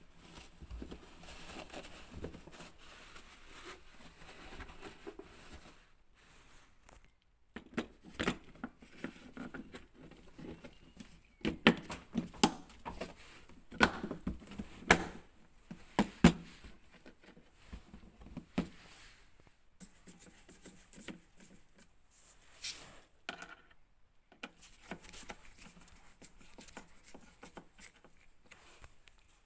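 Irregular clicks and knocks with some rustling, as of objects being handled, busiest and loudest in the middle.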